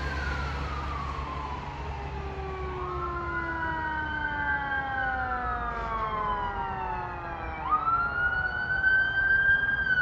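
Fire engine siren wailing as the engine approaches: long tones falling slowly in pitch, rising again sharply about three-quarters of the way through and holding high, over a steady low rumble.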